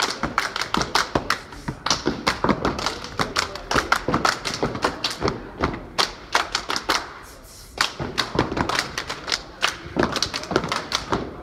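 Step team stepping: quick, rhythmic stomps, claps and hand slaps in tight unison, with a short lull about seven seconds in.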